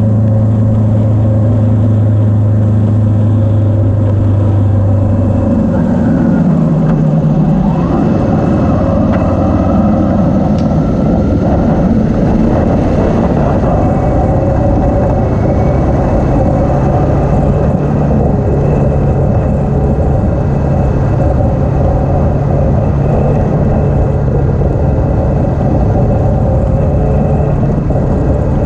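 Motorcycle engine running while riding, heard from a camera on the bike, with a constant rush of wind and road noise. About six seconds in the engine note shifts and wavers, then settles to a new steady pitch as the bike runs along a dirt track.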